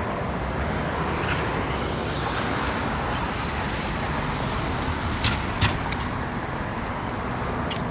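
Steady rumble of a landing airliner's jet engines, with a faint high whine that falls in pitch a couple of seconds in. Two short clicks come a little past halfway.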